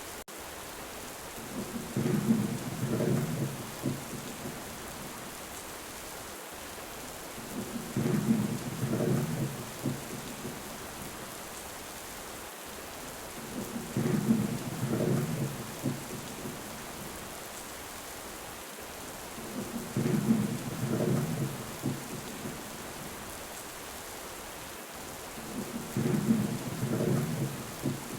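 Steady rain hissing, with five low thunder rumbles of about two seconds each, evenly about six seconds apart.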